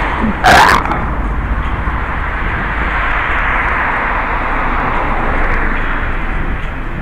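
Steady rushing noise from a concealed, partly covered camera's microphone while the wearer walks outdoors. About half a second in there is one loud, short scrape.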